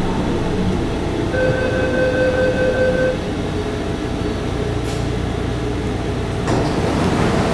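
Cabin of a Taipei Metro Wenhu Line Bombardier train standing at a station, with a steady low hum and rumble. About a second and a half in, an electronic beep sounds for under two seconds. The noise swells near the end.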